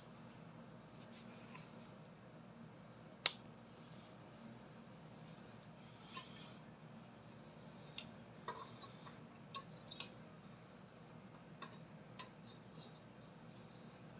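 Scattered sharp clicks and light metallic clinks over a low steady hum, with one loud click about three seconds in.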